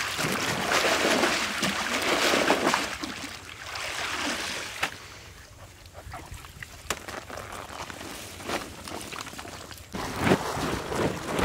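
Pond water sloshing and splashing as a wicker basket full of water caltrops is swished through it to rinse them, for the first three seconds or so. After that it is quieter, with scattered clicks and knocks of the basket and the caltrops being handled.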